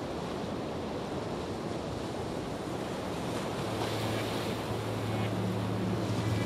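Sea waves washing on a shore: a steady hiss of surf that swells slowly, with a low steady hum coming in about halfway through.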